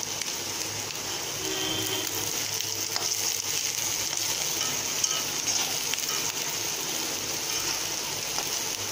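Chopped vegetables sizzling steadily in hot oil in a metal kadai while a steel slotted spoon stirs them.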